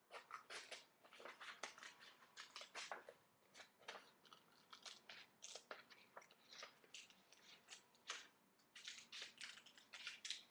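Scissors snipping through a sheet of paper: a quiet, uneven run of many short crisp cuts with some paper rustle.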